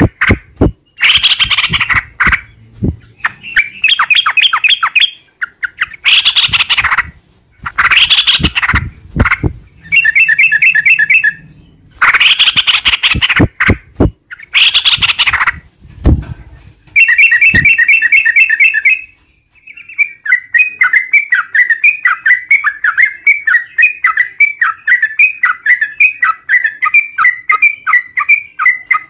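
Yellow-vented bulbul singing: loud, harsh bubbling phrases alternate with short fast trills, then a long rapid rolling chatter of repeated notes over the last third.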